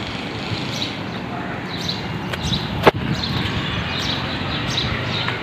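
Outdoor street ambience: a steady background hiss with short high chirps repeating every half second or so, and one sharp knock about three seconds in.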